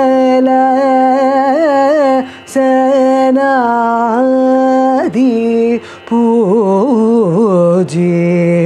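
A woman's solo voice singing a Carnatic devotional song, holding long notes that waver and turn in gamaka ornaments, with short breaks for breath between phrases.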